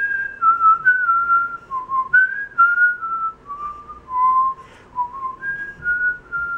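A man whistling a tune by mouth: one clear tone moving up and down in steps from note to note, in short phrases with brief breaks.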